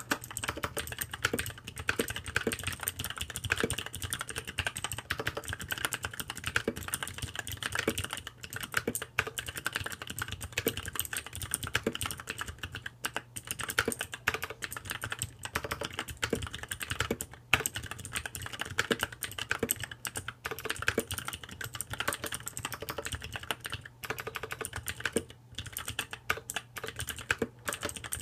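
Custom mechanical keyboard with lubed Kailh Blue clicky switches being typed on continuously: a fast, dense stream of key clicks, broken by a few brief pauses.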